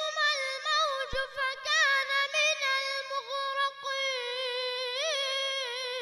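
A boy's high voice in melodic Quran recitation (tajweed chant), drawn out on one breath: quick ornamented wavers and turns in pitch through the first half, then a long steady held note.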